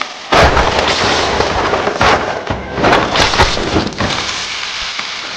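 Hot oil sizzling and crackling in a large wok as food fries, a loud, dense sizzle full of sharp pops that starts suddenly about a third of a second in.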